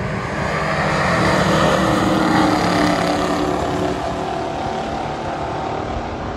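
Two stock muscle cars racing side by side down a drag strip, their engines at full throttle. The engine noise is loudest a couple of seconds in, then eases slightly as the cars pull away down the track.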